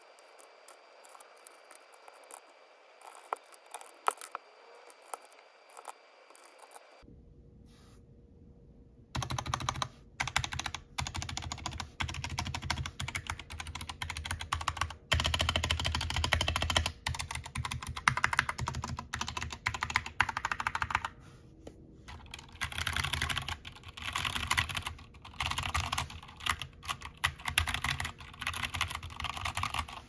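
Royal Kludge RK61 mechanical keyboard with PBT Cherry-profile keycaps being typed on, in bursts of rapid keystrokes separated by short pauses. It is preceded by several seconds of faint scattered clicks as keycaps are pressed onto the switches, and the typing starts about nine seconds in.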